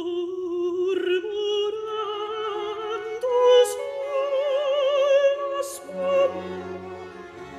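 Music: an operatic singing voice holds long notes with a wide vibrato, stepping up in pitch, over a soft accompaniment whose lower notes come in near the end.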